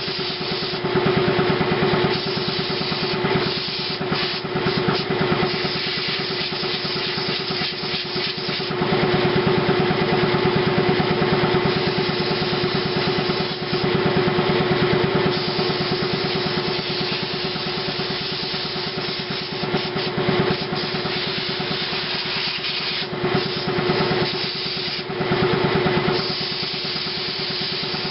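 Piston air compressor running with a steady pulsing hum, while an air blow gun fires several blasts of compressed air in louder hissing stretches, blowing dust out of a computer.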